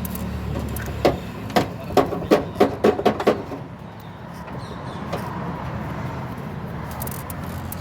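A quick, irregular run of about ten sharp knocks and clicks from parts and tools being handled during a car repair, starting about a second in and lasting a couple of seconds, over a steady low background hum.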